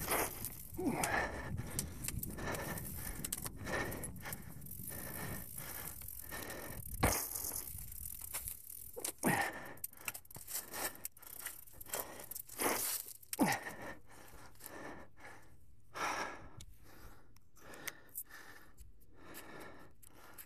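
Mountain bike tyres rolling through a thick layer of dry fallen leaves on a dirt trail, an irregular crunching and rustling, with the rider's breaths heard now and then.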